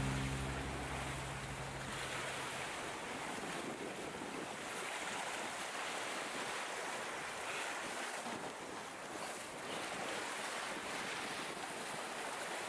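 Steady rush of wind and sea water around a sailing yacht under way, with wind on the microphone. Background music fades out over the first couple of seconds.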